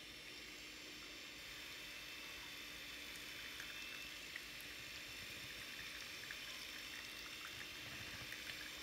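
Electric hand mixer running steadily, its beaters churning a creamy mixture in a stainless steel bowl, with scattered light ticks.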